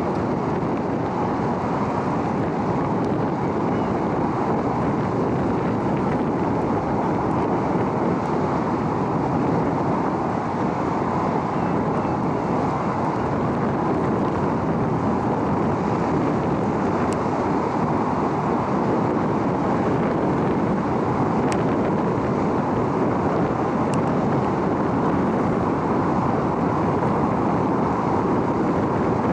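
Steady, even drone of a large car ferry's machinery, the Shin Nihonkai Ferry Azalea, as it manoeuvres out of its berth.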